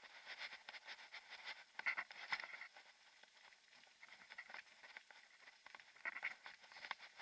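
Mountain bike rolling along a gravel track: faint, irregular clicking and rattling from the tyres on loose stones and the bike, busiest about two seconds in and again near six seconds.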